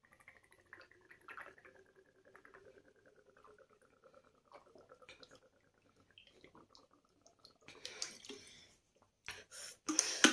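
A person drinking water from a bottle, swallowing faintly over several seconds, then a louder breath about eight seconds in as the bottle comes down.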